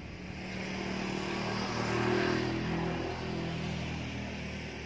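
A motor vehicle passing by: its engine and road noise grow louder to a peak about two seconds in, then fade away.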